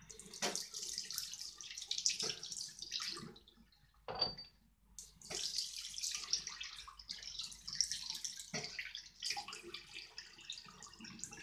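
Tap water running and splashing into a bathroom sink while someone rinses their mouth under the stream after brushing their teeth. The splashing drops away for a second or so about four seconds in, then picks up again.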